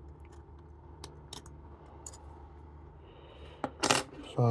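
Small metal clicks as a lever is worked out of a Chubb detector lever lock, then a louder, sharper metallic clack about a second before the end.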